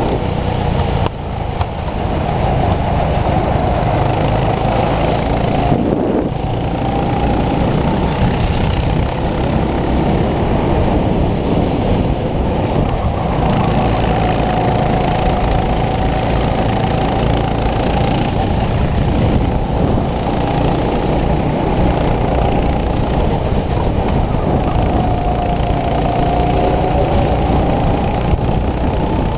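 Racing go-kart's small engine running hard, heard from onboard, its pitch wavering up and down through the corners over a steady rumble. There is a short drop in level about a second in.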